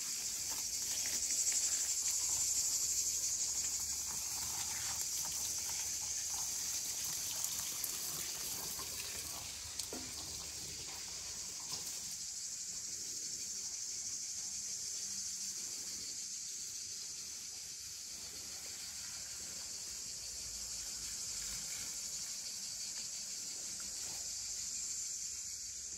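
Chorus of cicadas: a continuous high-pitched shrill buzz without break, with a few faint knocks in the middle.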